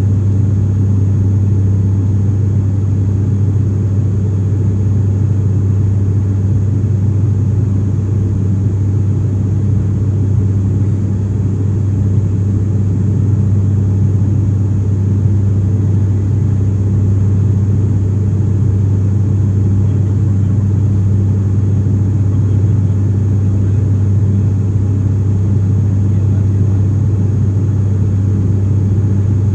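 Cabin drone of an ATR 42-500's Pratt & Whitney PW127 turboprop engines and propellers at climb power, heard from a seat beside the propeller: a loud, steady low hum with a strong deep tone.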